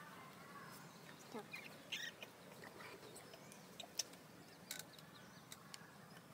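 Faint short chirping calls, a few of them in the first couple of seconds, followed by scattered sharp clicks, over quiet outdoor background noise.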